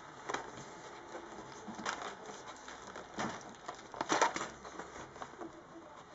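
Plastic clips of an Acer laptop's hinge cover clicking and cracking as the cover is pried loose by hand. The clicks are scattered, with a louder cluster about four seconds in.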